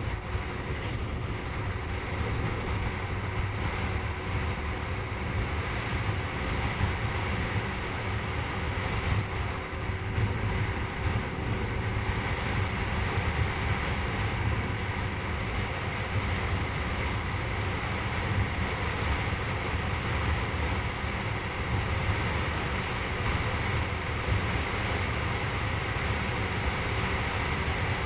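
Wind rushing over the microphone of a motorcycle riding at highway speed, a steady heavy rumble with the engine's hum and tyre noise underneath.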